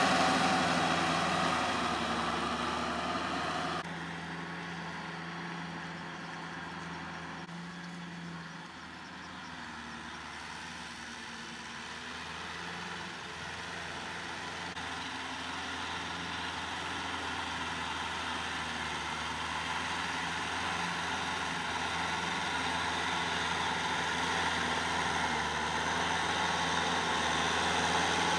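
Kubota L5018 tractor's diesel engine running steadily as it pulls a rotary tiller through the soil. The sound drops abruptly about four seconds in, then grows gradually louder toward the end.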